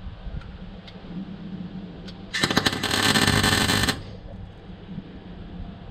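Welder striking an arc to tack-weld a car's exhaust pipe: one crackling burst about a second and a half long, starting about two and a half seconds in, which the welder thinks sounds almost a bit better.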